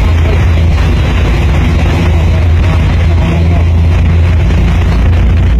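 Highway bus engine running steadily under load as the bus drives through deep floodwater, with water rushing and splashing around it.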